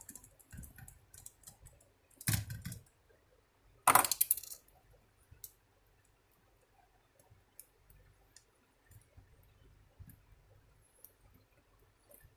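Small screws and a screwdriver clicking and clinking against a laptop's case as the screws are put back in, with two louder short clatters about two and four seconds in.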